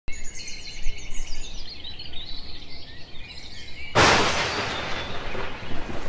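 Several birds singing and chirping together, a lively chorus of quick high notes. About four seconds in, a sudden loud rushing noise cuts in and fades away over about two seconds, drowning out the birds.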